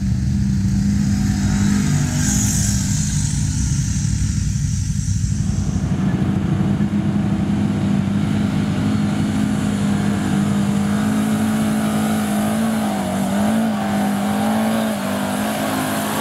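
ATV engine held at high, fairly steady revs under load, its pitch wavering up and down near the end.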